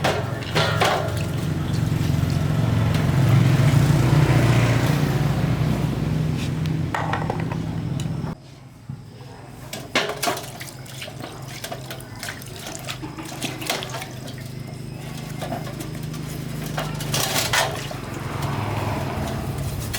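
A machine running with a steady low hum and a rushing, water-like hiss. It cuts off suddenly about eight seconds in, leaving scattered knocks and clicks, and a hum starts again near the end.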